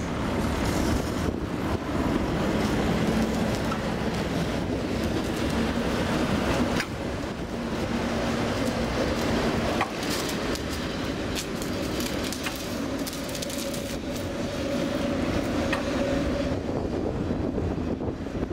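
Tram running on snowy track past the microphone, with a steady motor hum and rolling noise. About ten seconds in, a quick run of clicks and knocks comes from the wheels going over the rails.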